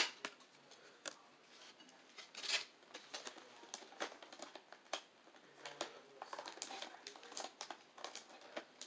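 Faint scattered clicks, taps and short rustles of hands handling card-pack packaging, with a louder rustle about two and a half seconds in.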